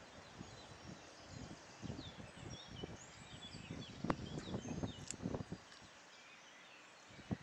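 Birds chirping in short, quick calls, busiest in the middle of the stretch. Under them are irregular low bumps and rumble on the microphone, which fade out near the end.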